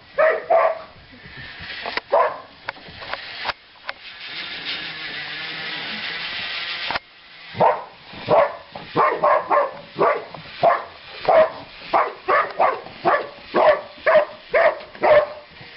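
Dog barking repeatedly: a few barks, then a steady hissing whir for about three seconds that cuts off suddenly, then a fast run of barks, about two a second.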